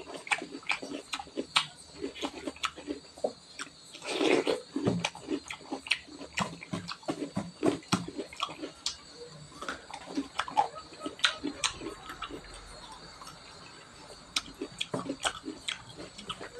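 Close-miked chewing and wet mouth smacking while eating rice by hand, with a quick run of small sticky clicks and a louder burst of chewing about four seconds in.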